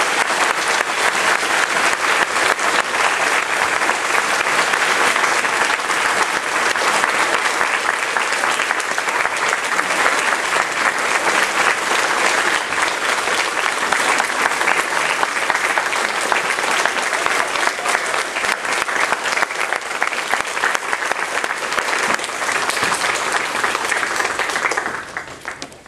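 Audience applauding steadily, dense clapping that dies away near the end.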